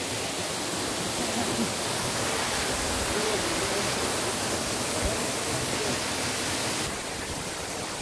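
Natural waterfall: a steady rush of water falling over rocks, dropping a little in level for the last second.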